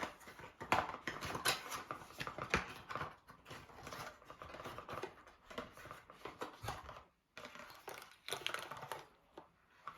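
Hands handling Nespresso coffee capsules and their packaging: a run of light clicks and taps with rustling, broken by a brief pause about seven seconds in.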